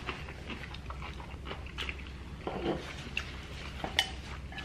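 Close-miked chewing and mouth sounds of people eating, with scattered small wet clicks and smacks and one sharp click about four seconds in.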